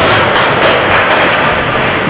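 Ice hockey rink ambience during a game: a loud, steady wash of noise with a few faint clicks.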